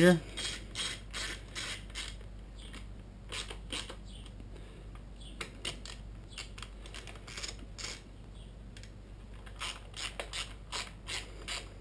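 Hand ratchet with an 8mm socket clicking in short runs with pauses, as bolts are run in and tightened.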